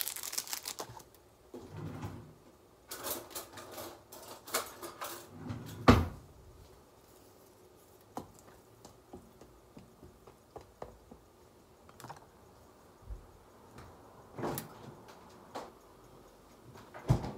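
Kitchen handling sounds while instant noodles are prepared: a plastic seasoning sachet crinkled and torn open, then scattered clicks, rustles and taps, with one sharp knock about six seconds in that is the loudest sound.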